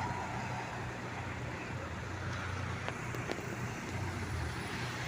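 Motor vehicle engine running steadily with road and traffic noise, and a couple of faint clicks about three seconds in.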